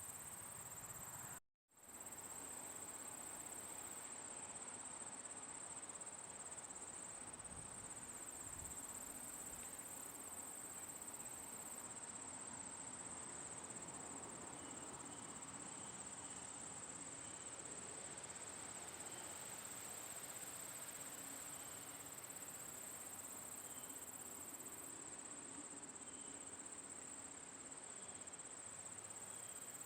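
Crickets chirping in a steady, high-pitched chorus over a faint even hiss. The sound cuts out completely for a split second about a second and a half in.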